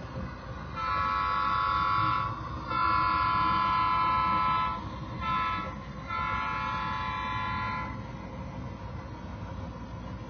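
Sound-equipped model train locomotive sounding its multi-chime horn in four blasts: long, long, short, long, the grade-crossing signal, over a low steady rumble of the running train.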